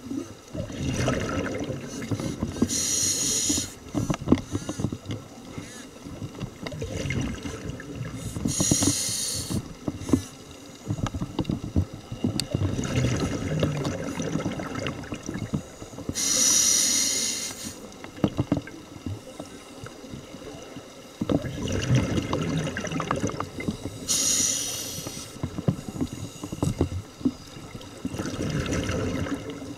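Scuba diver breathing through a regulator underwater: a short hiss of inhalation roughly every seven seconds, each followed by a few seconds of rumbling, crackling exhaled bubbles.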